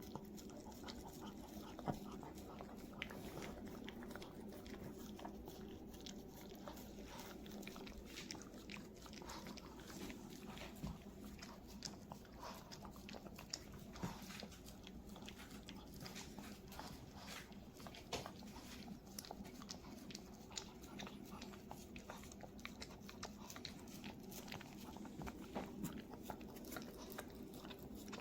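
Dogs licking and chewing ice cream: a long run of small, irregular wet clicks and smacks.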